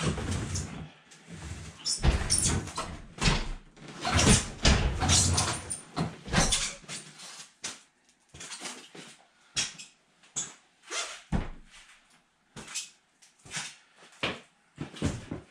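Irregular knocks, scrapes and clatter of things being handled, busiest in the first half and sparser toward the end.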